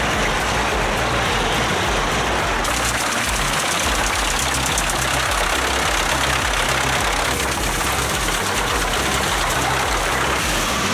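Pezzolato PTH-1000 electric stationary drum wood chipper running with a steady, loud mechanical roar over a pulsing low rumble. A hissier edge comes in about three seconds in.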